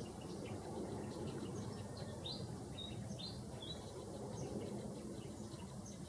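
Short high chirps from small birds, clustered about two to four seconds in, over a steady low background noise.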